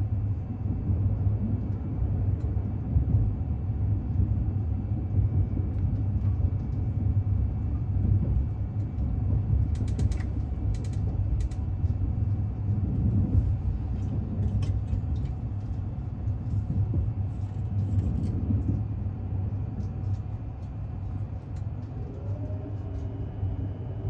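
Cabin noise of a JR Joban Line limited express Hitachi (E657 series electric train) under way: a steady low rumble of wheels on rail, with scattered creaks and clicks around the middle. A steady motor whine comes in near the end.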